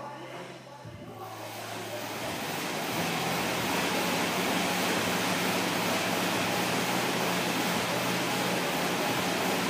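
Air bike's fan whooshing under a hard sprint, the rushing air building over the first two or three seconds as the pace picks up, then holding steady over a low hum.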